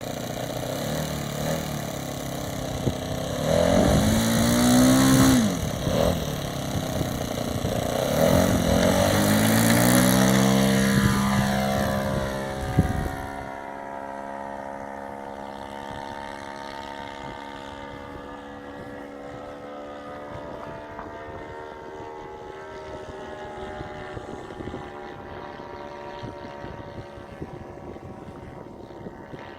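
Four-stroke 1.20 glow engine of a radio-controlled DHC-1 Chipmunk scale model in flight, its propeller drone passing close twice with the pitch dropping as it goes by. After about 13 seconds it is farther off: quieter and steady, sinking slowly in pitch.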